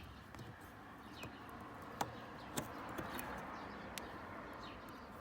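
Faint ambient background with a few sharp little clicks, about two seconds, two and a half seconds and four seconds in, from the halogen bulb and its connector being handled, and faint bird chirps.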